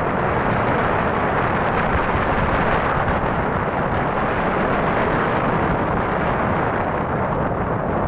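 Steady, loud rush of water in a heavy flood, an even roar that does not let up.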